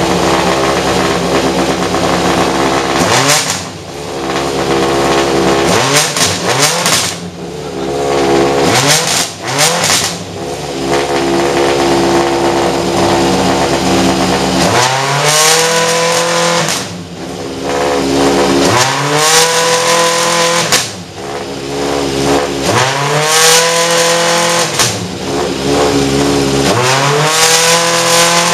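BMW M3 DTM race car's V8 engine running stationary and being revved over and over: about seven throttle blips, each a rise in pitch that falls back toward idle, every three to four seconds. It is loud enough, with the microphone right beside the car, to overload the recording.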